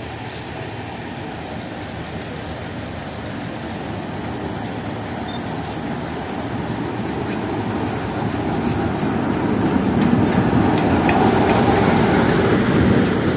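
Diesel locomotive running as it pulls into the platform, its engine growing steadily louder as it approaches and passes close by, with a few sharp clicks from the wheels near the end.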